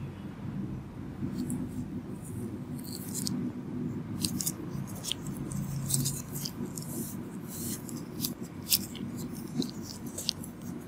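A run of short, sharp clicks and scratches from small extraction tools and swabs handled near the microphone, irregular and sometimes several a second, over a steady low room murmur.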